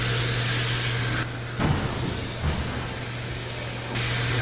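Wall-mounted hand dryer blowing: a steady motor hum under a rush of air. The hiss of the air dulls for a few seconds midway, with a couple of faint low knocks.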